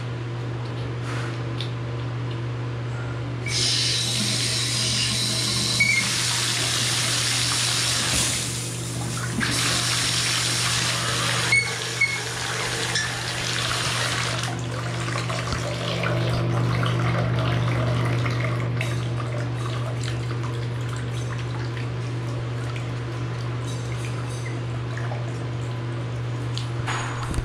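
Water running through a three-handle bathtub and shower valve as its handles are turned: a rushing hiss of flow comes on about three and a half seconds in and falls away after about fourteen seconds, over a steady low hum.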